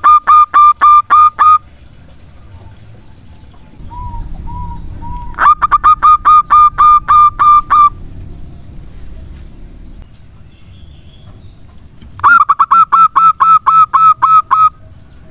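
Zebra dove (perkutut) cooing: three loud runs of rapid, evenly spaced staccato coos, each about two seconds long and about four or five notes a second, coming near the start, about five seconds in and about twelve seconds in, with a few soft short coos before the second run.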